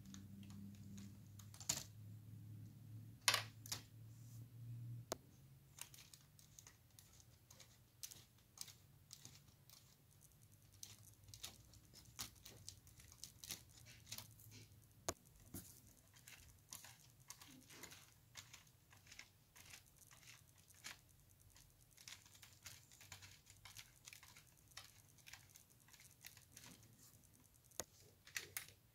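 Plastic Lego Technic gears, rack and pins clicking and ticking faintly as the crane's boom mechanism is worked by hand; small irregular clicks run throughout, with a sharper snap about three seconds in. A low hum sits under the first five seconds.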